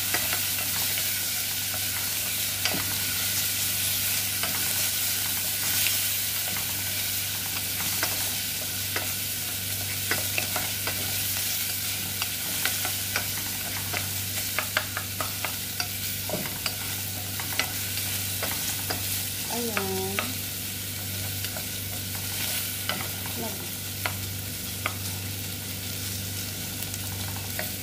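Chopped onion sizzling in hot oil in a pot while a wooden spoon stirs it, with many small scrapes and taps of the spoon against the pot. The onion is being sweated with a pinch of salt. A steady low hum runs underneath.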